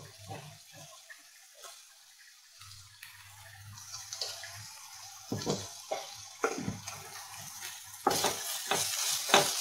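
Sliced onions, green chillies and capsicum sizzling in hot oil in a non-stick kadai, the hiss growing a few seconds in. A flat spatula scrapes and tosses through the vegetables a few times from about five seconds in, loudest near the end.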